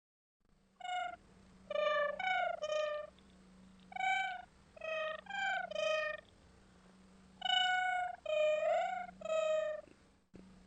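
A domestic cat meowing in short, clipped calls, about eleven in three quick runs, over a faint steady low hum.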